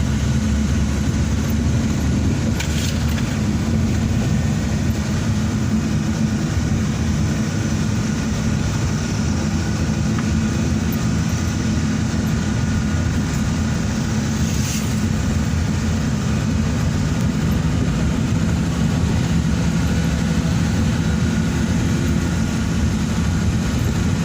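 Steady engine and road noise of a van under way: a constant low hum that holds level throughout.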